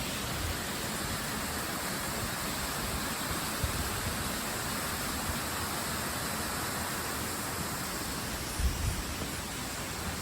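Waterfall rushing steadily, an even hiss of falling water with no change. A couple of brief low bumps near the end.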